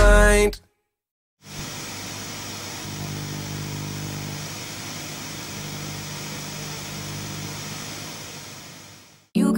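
Steady cabin noise of a moving coach: an even road and air hiss with a low engine hum. It comes in after a moment of silence and fades away near the end.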